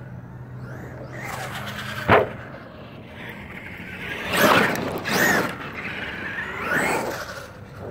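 Traxxas E-Revo RC monster truck on a dirt track. There is a sharp knock about two seconds in, then its electric motor whines up and down in pitch three times as it is throttled.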